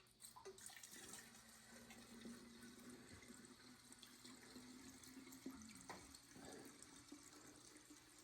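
Fuel being poured into a chainsaw's fuel tank: a faint, steady pouring.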